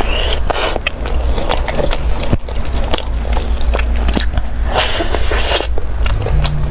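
Close-miked biting into and chewing a toasted taro-ball pancake with a chewy mochi crust, with quick crackly crunches throughout and a louder crunch about five seconds in.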